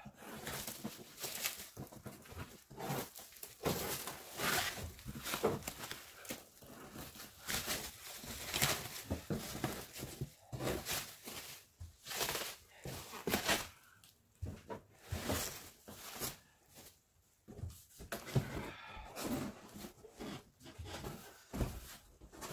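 Plastic stretch wrap being pulled and torn off a shipping pallet, crinkling and rustling irregularly.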